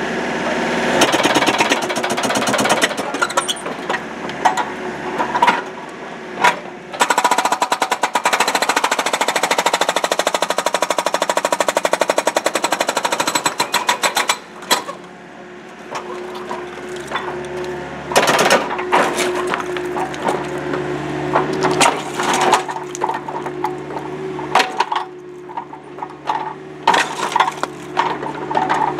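Rockblaster hydraulic breaker hammer on a Case excavator's boom pounding a concrete pool wall, firing very rapid blows. Two long runs of blows come early on, then shorter bursts with pauses between them. The excavator's engine runs steadily underneath.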